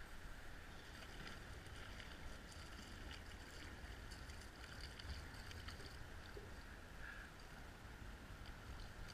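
Faint water sounds around a kayak hull, with a low wind rumble on the microphone and scattered light ticks.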